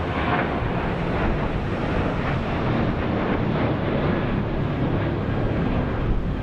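Jet noise from a Boeing 737 airliner climbing out after takeoff: a steady, loud, broad rumble with no distinct whine.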